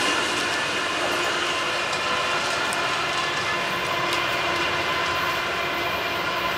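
Loaded freight train of sand cars rolling past: a steady rolling rumble of steel wheels on rail with a few faint, steady high tones above it.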